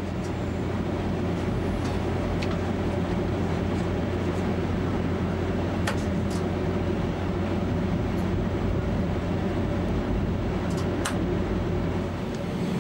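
Train running at speed on track, a steady rumble and rush, while a passenger train passes close alongside on the next track. A few sharp clicks come through, around the middle and near the end.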